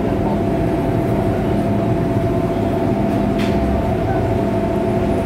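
MTR M-Train heard from inside the car while running: a steady rumble of wheels on the rails with a constant electric motor whine over it.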